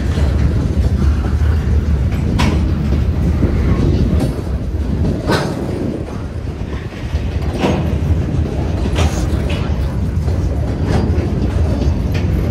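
Freight cars rolling past at a grade crossing: a steady low rumble of wheels on rail, with a sharp wheel click every second or two.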